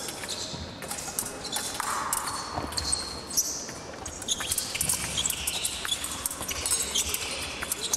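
Épée fencers' footwork on the piste: shoe soles squeaking and stamping in quick, irregular bursts as the fencers advance and retreat, with sharp clicks scattered through it, the sharpest about three and a half seconds in.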